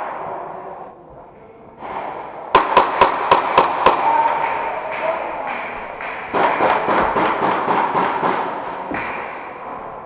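Airsoft guns firing rapid bursts inside a plywood killhouse: a quick run of about eight sharp shots, then a longer, denser burst a few seconds later.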